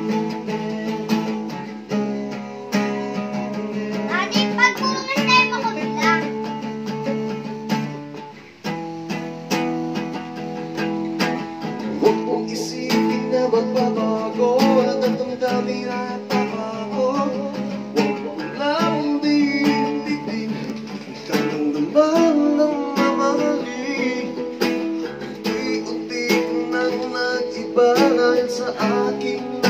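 Acoustic guitar strummed in a steady rhythm, with a man singing along at several points.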